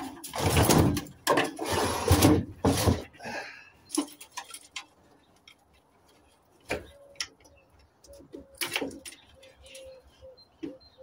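A gutted gas boiler's metal casing is dragged and turned round: about three seconds of loud scraping and clattering. Scattered knocks and clicks follow as parts inside are handled.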